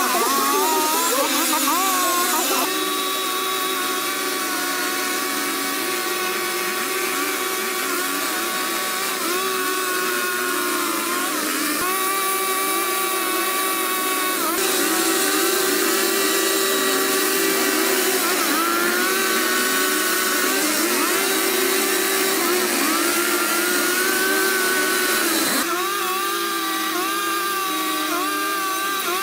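Engine-driven machinery running steadily with its pitch drifting up and down under load, changing abruptly three times as one clip cuts to the next.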